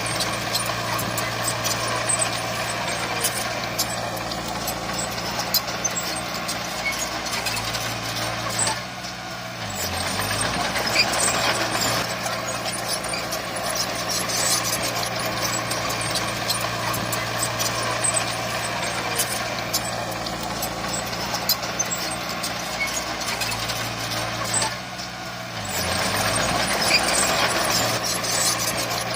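Heavy diesel earthmoving machinery running steadily with a low engine drone and clatter. The engine note dips briefly about nine seconds in and again about 25 seconds in, then picks back up.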